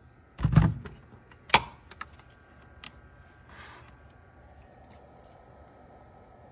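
Handling noise: a dull thump about half a second in, a sharp click about a second later, then a few lighter clicks and rattles.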